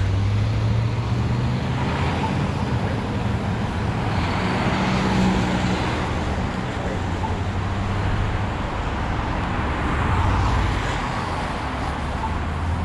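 Road traffic: motor-vehicle engine and tyre noise, steady, with a vehicle growing louder and fading a few times.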